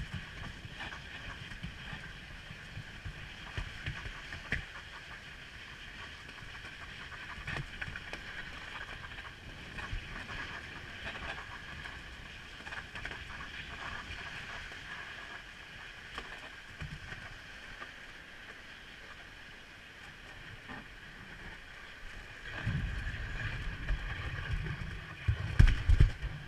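Wicker Monte toboggan's wooden runners sliding down an asphalt street, a steady rasping hiss with low rumble and occasional small knocks. In the last few seconds the rumbling and knocking grow louder as the sled comes to a stop.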